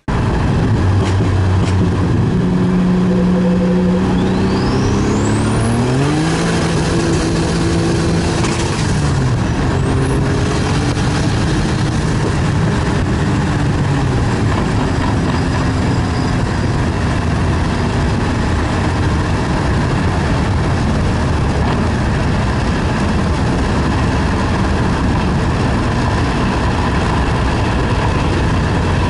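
Car engine revving under acceleration, its pitch climbing and dropping several times over the first ten seconds, then a steady loud drone of engine and road noise.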